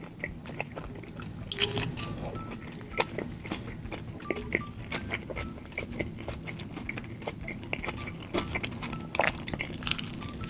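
Close-miked eating: many sharp bites and chews of McDonald's burgers and sides, with wet mouth clicks, over soft background music.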